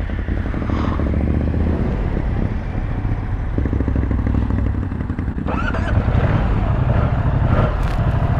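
Moto Guzzi V100 Mandello's 1042 cc transverse V-twin engine running under the rider, heard from on the bike, with a steady low hum that gets a little louder about six seconds in.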